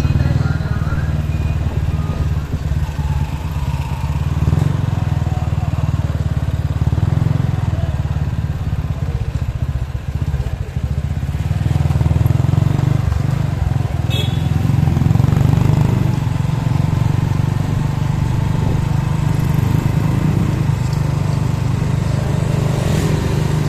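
Motorcycle engine running steadily while riding along a street, a continuous low rumble.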